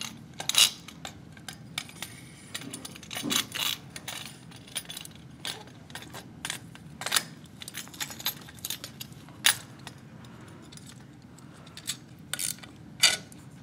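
Irregular metallic clicks and clinks from the aluminium antenna tube and its bolted mast clamps being handled and fitted against a tripod mast. A faint steady low hum runs underneath.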